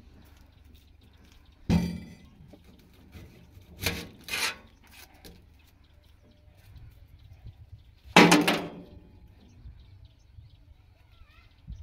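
Knife peeling the dry papery skin off an onion: a few short crackling tears, the loudest about eight seconds in, with a sharp knock about two seconds in.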